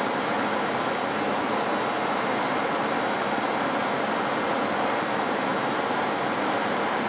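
Steady rush of air from a laboratory biosafety cabinet's blower running.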